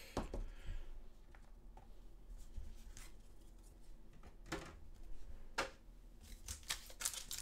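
Faint handling noise of trading cards and a wrapped card pack: a few scattered soft clicks and rustles, coming closer together near the end.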